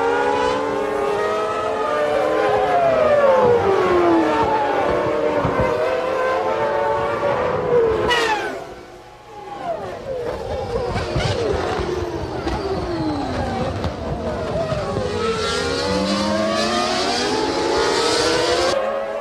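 Formula One cars' 3-litre racing engines at high revs, several at once, their pitch falling as they pass or brake and rising as they accelerate away. About eight seconds in, a sharp high glide is followed by a brief dip in loudness.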